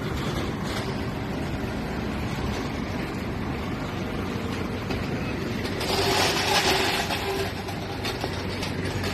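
Heavy vehicle's diesel engine running steadily, a low rumble under broad mechanical noise, with a brief burst of hiss about six seconds in.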